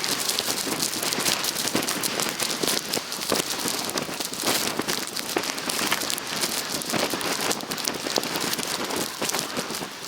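Wind-driven snow in a blizzard pelting the microphone: a dense, steady crackling patter over a hiss.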